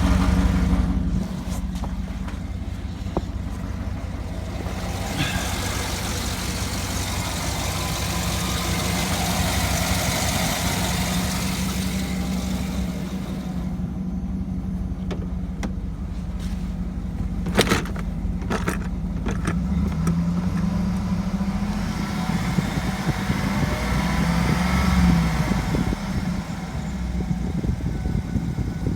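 2007 GMC Yukon Denali's 6.2-litre L92 V8 running steadily, at 220,000 miles. A few sharp clicks sound a little past the middle.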